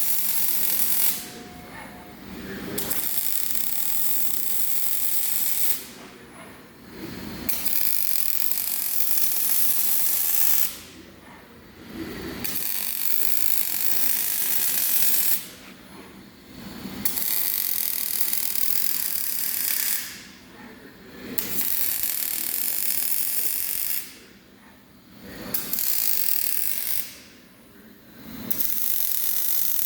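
Robotic arc welder laying a series of short welds on a steel frame: stretches of crackling arc noise a few seconds long, about seven times over, broken by short pauses in which a brief motor whine rises and falls as the robot arm moves to the next joint.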